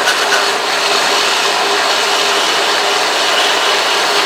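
Drill press driving a small 400-grit sanding belt, running steadily with a hum, while a steel plane nicker blade is held and rotated against the belt to hone its edge, giving a continuous grinding hiss.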